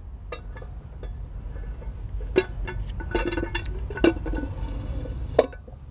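Steel lifting ring being slid down over a hydraulic pole jack, metal on metal: four sharp clinks and knocks spread out, with a short ringing squeal from the metal in the middle.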